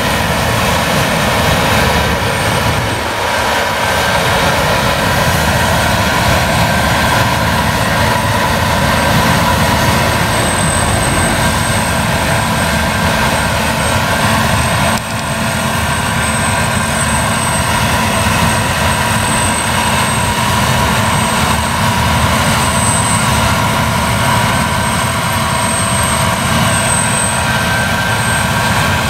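Claas Lexion 770 TT combine harvester threshing rapeseed under load: a steady drone of engine and threshing machinery, with thin high whines from its drives over it.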